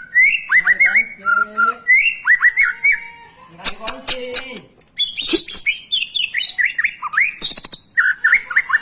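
White-rumped shama (murai batu) singing hard: a fast, varied string of loud whistled notes, rising and falling slurs, harsh chirps and clicking rattles, with a brief pause about halfway through.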